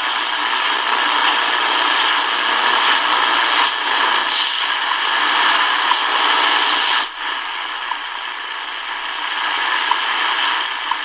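Shortwave static hissing from the speaker of a Tecsun DR-920C portable radio as it is tuned across the 5 MHz region with no station coming through. A whistle sweeps sharply upward in the first second, another falls in pitch around four seconds in, and the hiss drops abruptly and turns duller about seven seconds in.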